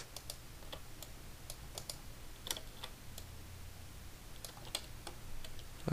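Faint, irregular clicks of a computer keyboard and mouse as Blender hotkeys and selections are worked, over a low steady hum.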